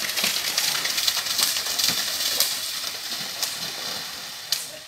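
Rushing, splashing water as a pair of racing buffalo run through the flooded mud track, with scattered sharper splashes, fading near the end.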